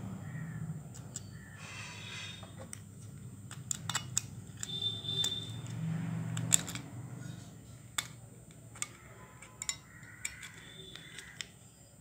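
Sharp little clicks and scrapes of metal on plastic as a coiled-spring battery terminal is worked into the plastic battery compartment of a toy car's remote with a small screwdriver, coming thickest in the middle and then thinning out, over a steady low hum.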